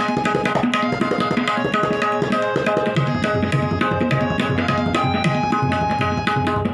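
Tabla solo in teentaal: fast, dense strokes on both the dayan and the bayan, with sustained tones ringing beneath the strokes.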